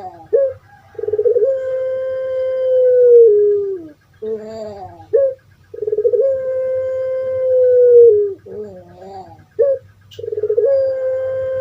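Puter pelung dove (Streptopelia risoria) cooing: three long calls, each opening with a quick rolling stutter and then a long held note that falls away at the end, with shorter coos in between.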